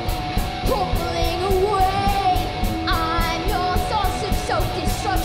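Live heavy metal band playing: distorted electric guitars with bending notes over drums, the cymbals struck on a steady, even beat.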